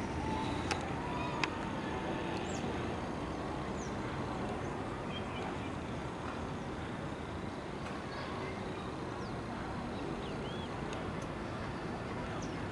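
Distant small helicopter flying low, a steady even drone of rotor and engine, with birds chirping briefly now and then.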